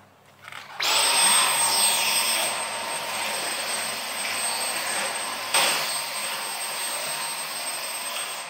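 Cordless stick vacuum cleaner starting up about a second in and then running steadily, a constant high whine over the rush of air. There is a brief knock about five and a half seconds in.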